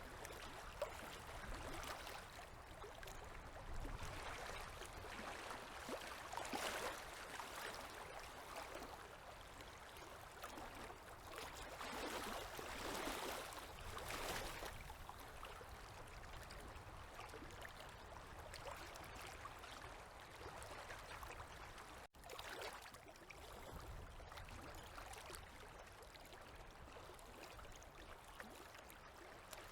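Small river waves lapping, a soft wash of water that swells and fades every few seconds.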